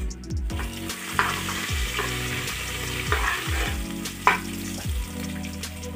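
Garlic and ginger sizzling as they fry in hot oil in an aluminium pressure cooker, with a spatula stirring and scraping against the pot a few times.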